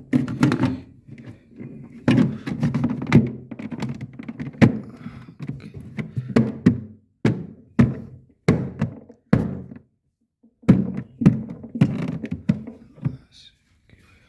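A series of irregular thunks and knocks, with a gap of about a second before the last cluster.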